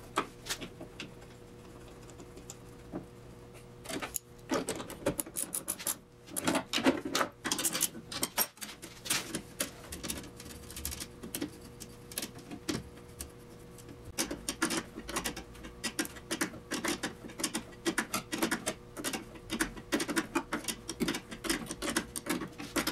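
Irregular small metallic clicks, taps and scrapes of hands and tools working a brake line fitting into a brake master cylinder. The work is done by hand at first and with an open-end spanner on the flare nut near the end. A faint steady hum runs underneath.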